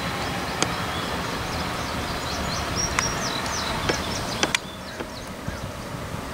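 Diesel freight locomotives passing with a steady rumble, with a few sharp clicks and birds chirping in the middle. The sound turns quieter and thinner about four and a half seconds in.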